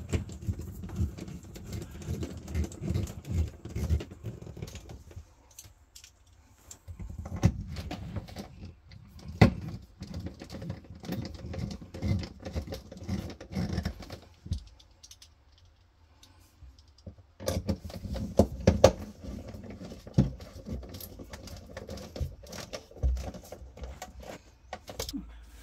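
Screws being turned into a refrigerator's plastic evaporator fan housing, snugged down without over-tightening. Three spells of small clicks and scrapes with short pauses between.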